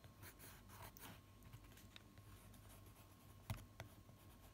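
Faint scratching of a watercolour pencil shading on a thin wooden cutout, with two light clicks near the end.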